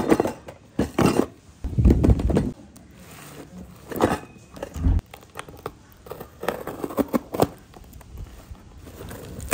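Hands handling a cardboard box wrapped in packing tape: irregular crinkling and rustling of the tape, with a few dull knocks on the cardboard.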